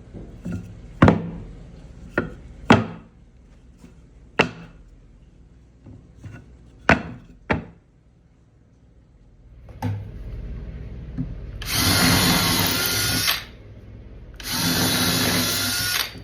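Workshop sounds: a string of sharp knocks on wood over the first seven or eight seconds, then a power tool running in two loud bursts of about a second and a half each near the end.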